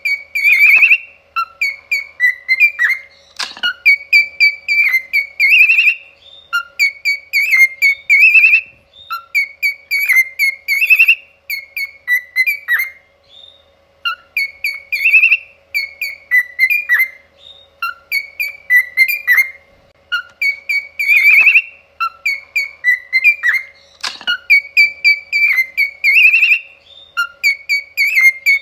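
Pet cockatiel whistling a learned tune: runs of warbling, trilled whistle notes, the same phrases repeated over and over, with a brief pause about halfway through.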